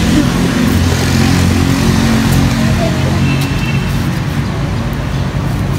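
Engine of a road vehicle running steadily, a low even hum.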